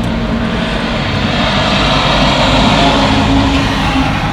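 Steady motor-vehicle engine noise with a low hum, swelling slightly and easing off near the end.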